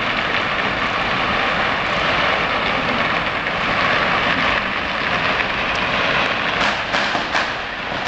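Strings of firecrackers going off below in a dense, continuous rapid crackle, thinning into separate sharp bangs near the end.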